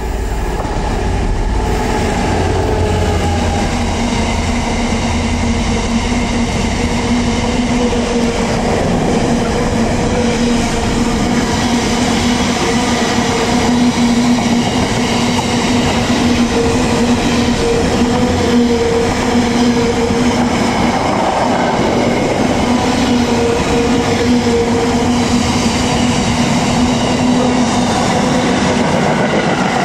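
A Class 66 diesel locomotive, with its two-stroke V12 engine, hauling a long container freight train past, with a low engine rumble in the first few seconds. The container wagons then roll by at speed, their wheels clattering on the rails with a steady hum.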